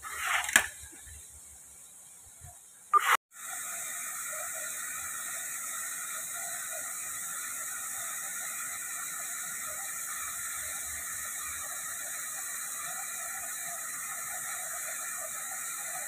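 Steady rushing splash of a tall jet fountain's water falling back into its basin. It starts after a sudden break about three seconds in. Before that there is a fainter background with a couple of brief, louder sounds.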